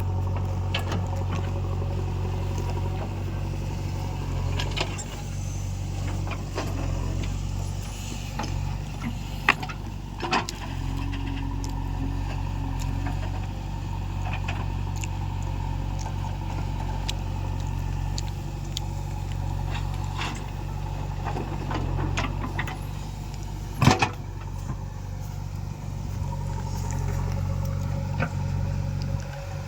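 Diesel engines of a backhoe loader and tractor running steadily with a deep drone, with scattered clanks and knocks from the machinery at work. There is one sharp, loud knock about 24 seconds in.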